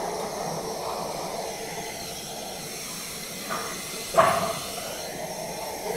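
Injection moulding machines with robotic take-out arms running: a steady hiss and hum, with a sharp clack about four seconds in and a smaller one just before it.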